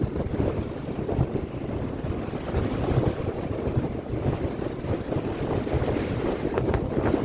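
Ocean waves washing in, with wind buffeting the microphone as a continuous low rumble.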